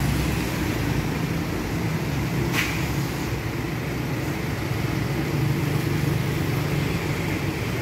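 A flatbed tow truck's engine running steadily with a low rumble. One brief sharp click or squeak about two and a half seconds in.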